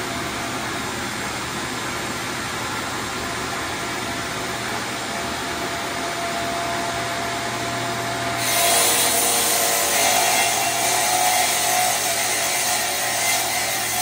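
Ridgid table saw running with a steady hum. About eight seconds in the blade bites into 3/4-inch plywood and rips it lengthwise, and the sound turns louder and harsher for the rest of the cut.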